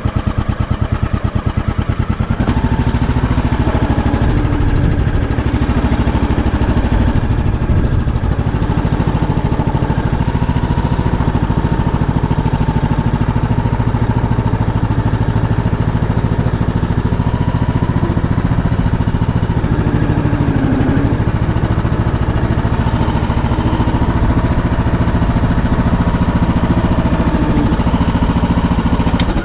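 Ride-on lawn mower's engine running steadily as the mower is driven across grass and onto aluminium loading ramps, its note shifting slightly about two seconds in.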